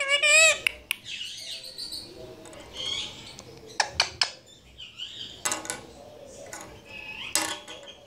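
Indian ringneck parakeet chattering in short warbling calls, one loud wavering call at the start, with a few sharp clicks about four seconds in.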